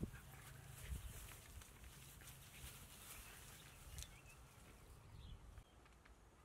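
Two puppies play-fighting on dry grass, heard faintly, with a few light knocks. It grows quieter after about five and a half seconds.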